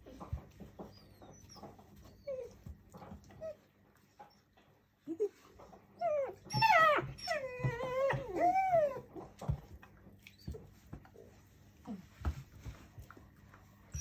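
German Shepherd puppies playing rough with their mother, one of them whining and yelping in a run of calls that bend up and down about halfway through. Small scuffling knocks come and go around it.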